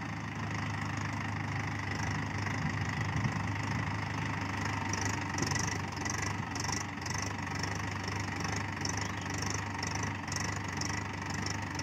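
Mahindra Yuvo Tech+ 585 DI tractor's diesel engine running steadily as the tractor drives through the paddy field. From about halfway through, a repeated high hiss pulses over the engine sound.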